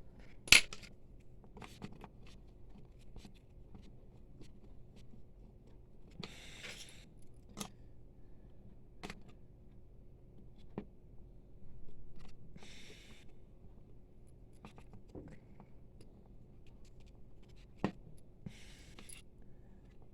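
Hand scraping of dried ink off an inkjet printer's capping station, heard as a few short scratchy strokes about six seconds apart among small clicks and taps of tools on plastic. A sharp click about half a second in is the loudest sound.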